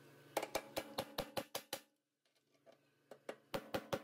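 Light hammer taps on a steel punch, marking bolt-hole positions through a spindle-lock bracket. There are two quick runs of sharp knocks, about eight and then about six, roughly five a second, with a short pause between.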